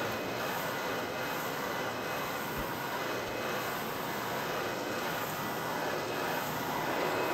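Carpet agitator machine running as it is pushed over a shag rug, a steady, even rushing whir.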